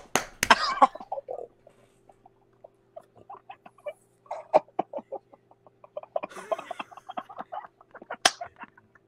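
A person's mouth and throat making the 'turbulence' vocal trick: runs of rapid, stuttering clucks and clicks in several bursts, with a sharp pop near the end. A faint steady hum runs underneath.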